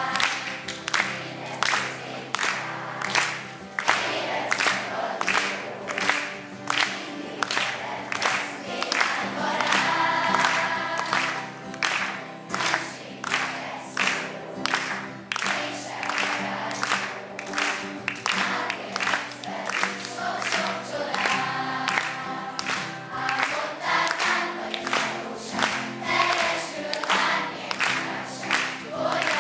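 Large children's choir singing together over accompaniment with a steady beat of about two strokes a second.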